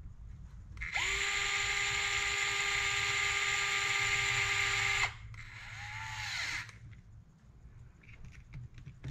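Cordless electric screwdriver with a hex bit driving a screw into an RC crawler's brass axle link mount. It spins up and runs with a steady whine for about four seconds, stops, then gives a shorter, fainter run that speeds up and slows down.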